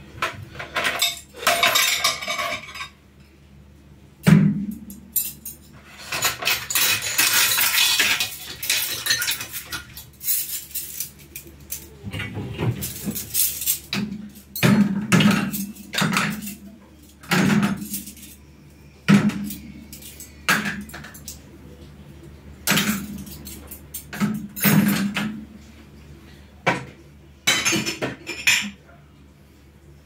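Plates, glasses and cutlery clinking and clattering in irregular knocks as dishes are handled and put away from a wire dish rack.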